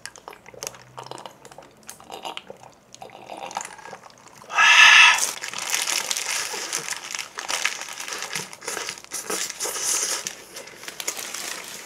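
A burger's paper wrapper crinkling loudly about four and a half seconds in as the burger is lifted and bitten. After that come chewing and smaller wrapper rustles.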